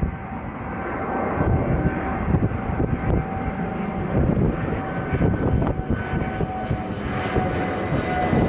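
Jet airliner's engines running at takeoff thrust: a dense rumble with a steady whine over it, building over the first second, then holding loud while the whine sags slightly in pitch near the end.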